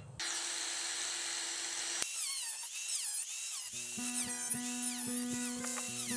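High-pitched whine of a small high-speed power tool, wavering up and down in pitch as it cuts into coconut shell. Background music with a steady beat comes in about two-thirds of the way through.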